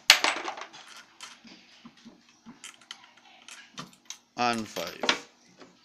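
Light metal clicks and clinks of camshaft bearing caps and their bolts being lifted off a Mazda WL-T cylinder head by hand and set down. A sharp clink comes at the very start, then scattered light ticks.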